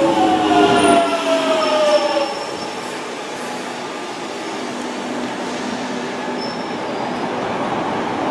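London Underground electric train running: a motor whine falling in pitch for about the first two seconds, then a quieter steady rumble of the train on the track.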